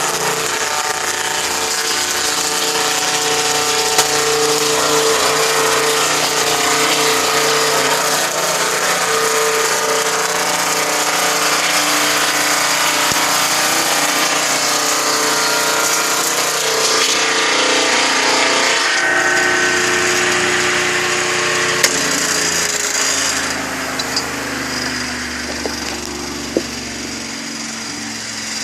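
Sawmill running steadily. Its pitch drops about two-thirds of the way through, and it gets a little quieter near the end.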